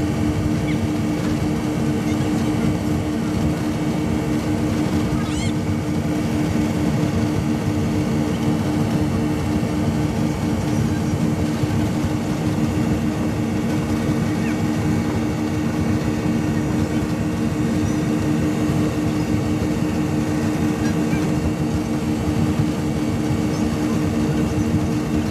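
Twin 250 hp Yamaha outboard engines of a wooden speedboat running at steady cruising speed: a continuous drone that holds one pitch throughout, over a hiss of rushing noise.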